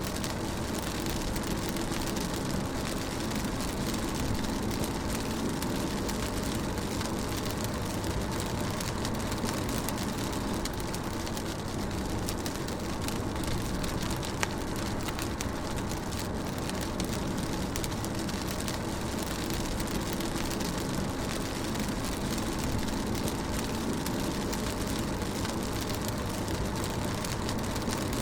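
Rain falling on a moving car, heard from inside the cabin, over a steady rumble of road and engine. It is an even, unbroken sound, with one sharper tick about halfway through.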